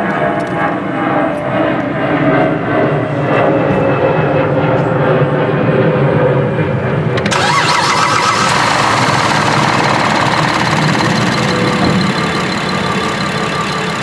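GM 3.6-litre V6 engine of a Chevy Traverse being started: it cranks for about seven seconds, then catches suddenly and runs. The long crank fits the hard starting caused by its EVAP purge valve, which is stuck open.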